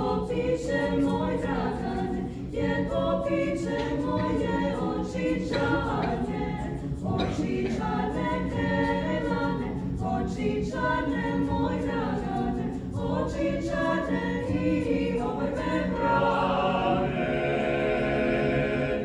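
Mixed chamber choir of men's and women's voices singing a cappella in close harmony, a folk-song arrangement, ending on a long held chord near the end.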